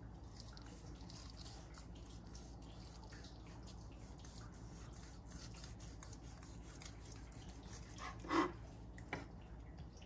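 Knife slicing through roast pork on a plastic cutting board: faint cutting sounds and small clicks, with one short, louder knock about eight seconds in and a lighter one just after.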